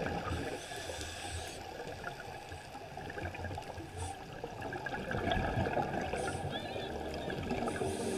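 Underwater ambience: muffled water noise with gurgling, a few low thumps and brief hissy bursts.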